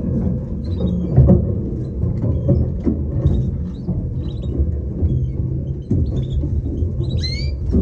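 Short high chirps and a brief gliding call from canaries, over a steady low rumble with scattered knocks.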